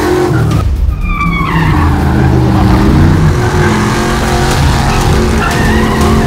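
Small-block V8 of a 1977 Chevy C10 drift truck revving hard while its rear tires squeal and skid through a drift. A sharp tire squeal stands out about a second in, and another comes near the end.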